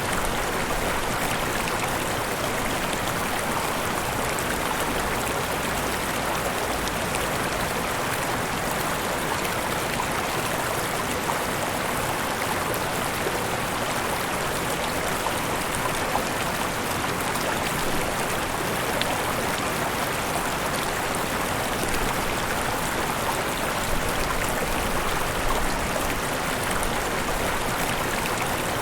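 Mountain river running over small waterfalls: a steady rush of flowing water with fine splashing.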